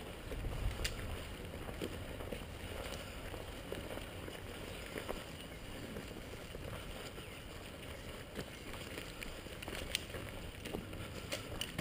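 Low rumble of wind and handling noise on a helmet-mounted GoPro, with a few faint clicks or knocks scattered through it.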